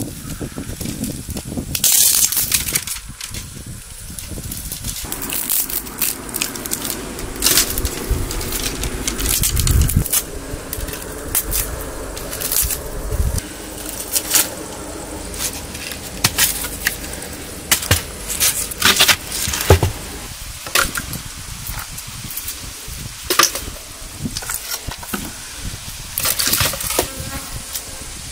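Scattered sharp clicks and knocks, typical of handling utensils and food during cooking, with an insect buzzing steadily through the middle of the stretch.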